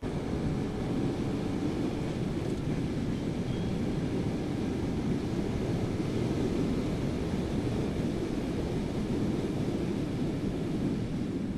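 Steady, low wind rush over the action camera's external microphone while riding a small motorcycle at road speed, with engine and road noise mixed underneath and no distinct engine note.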